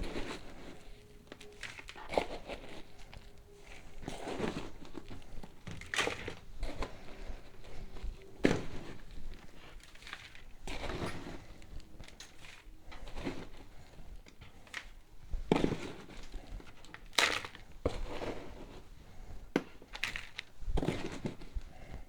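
Irregular rustling, crinkling and scraping with occasional knocks: flower pots being handled and filled with soil for planting.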